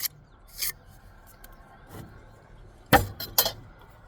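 Steel mason's trowel scraping and clinking against a brick and mortar while buttering the brick: a short scrape near the start, then two sharp clinks close together about three seconds in.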